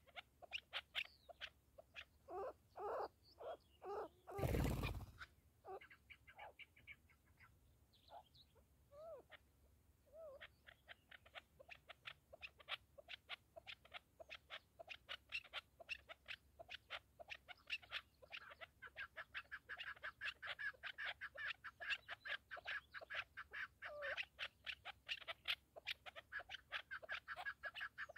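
Chukar partridges calling: runs of clucking notes, sparse at first, that from about ten seconds in become a steady fast chatter of several notes a second. About four and a half seconds in, a brief loud rush of noise.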